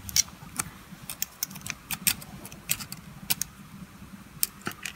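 Metal parts of a disassembled electromagnetic all-wheel-drive coupling clicking and clinking against each other as they are handled, in a quick, irregular string of small sharp clicks.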